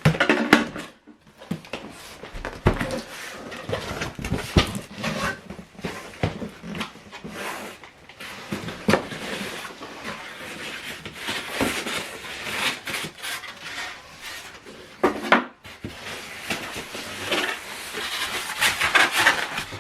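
Cardboard box and packaging being handled and opened: irregular knocks, scrapes and rustles throughout, with a sharp knock at the very start and another about fifteen seconds in.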